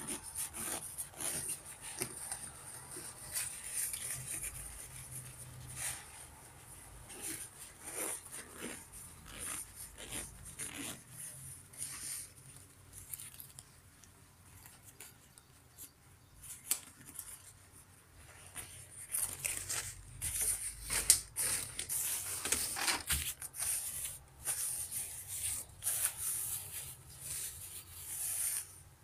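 Thin, shiny nylon shell of a lightweight duck-down jacket rustling and crinkling as hands rub and press it. The rustling comes in uneven spurts, sparse in the middle and busier in the second half.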